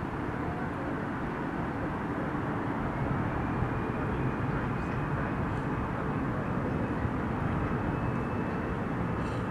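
Airliner engines running with a steady rumble, a thin high whine joining about a third of the way in and rising slowly in pitch as the sound grows a little louder.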